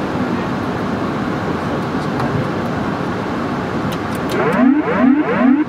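Steady flight-deck noise of a Boeing 747-8F on final approach. Near the end come three quick rising whoop tones, about half a second apart, that stop abruptly: the pattern of the Boeing autopilot-disconnect warning as the pilot takes over by hand.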